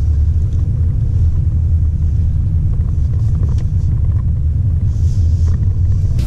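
Steady low rumble inside the cabin of a W177 Mercedes-Benz A200 on the move: engine and road noise from the car.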